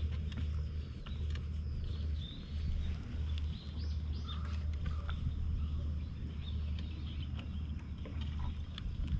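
Calico cat purring while being stroked, a steady low rumble that dips briefly now and then, with faint bird calls above it, mostly about halfway through.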